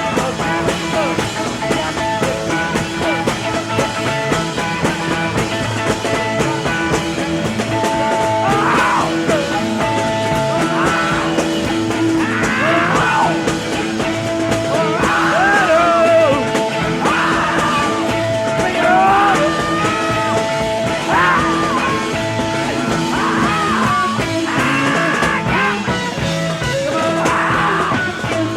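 Rock music: a full band with a lead line that bends in pitch over held backing notes.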